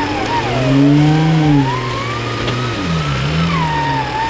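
Jeep Wrangler engine revving up and falling back as it climbs a slippery mud slope on a winch line, its pitch rising about a second in and dropping again, with a wavering higher whine over it.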